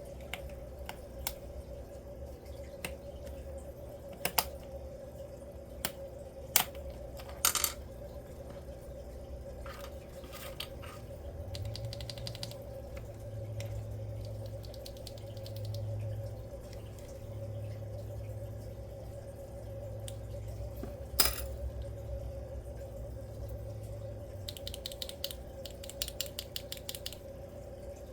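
Sharp plastic clicks and snaps of keycaps being pulled off and pressed onto a keyboard, spaced irregularly. Quick runs of clicks like keys being pressed come about twelve seconds in and again near the end, over a steady hum.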